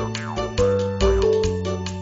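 Upbeat background music with a bass line, a melody of held notes and a steady beat.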